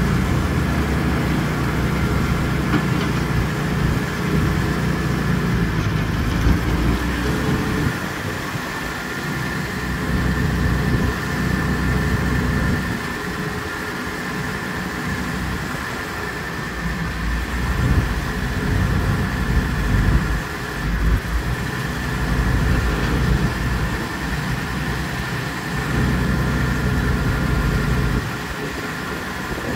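Allis-Chalmers D19 tractor engine running at idle, its note shifting a few times, with a faint steady high whine alongside.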